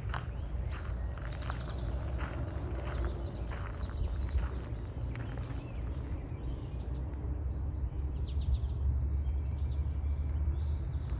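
Songbirds singing: fast runs of short, high, falling chirps, repeated many times a second, over a steady low rumble. Footsteps crunch along the path during the first half.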